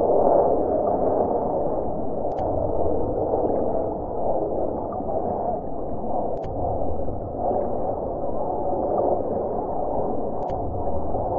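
Fighter jet engine noise heard from the ground: a steady, muffled rumble that swells and eases a little as the jet flies overhead.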